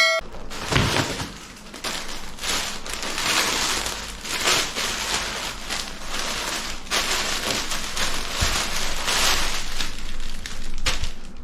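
Gift packaging, plastic or paper wrapping, being handled and pulled open, crinkling and rustling with many small crackles.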